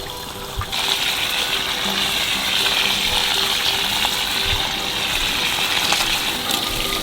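Water pouring in a steady gush that starts about a second in and cuts off abruptly at the end, with faint background music underneath.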